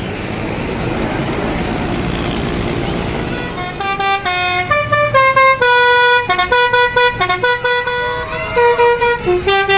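A tour bus's telolet 'basuri' musical horn plays a fast tune of short, stepped notes. It starts about three and a half seconds in, after a stretch of steady noise.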